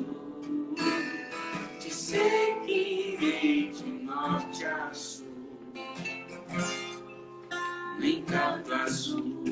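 Acoustic guitar strummed in a live song, with a voice singing without clear words over it.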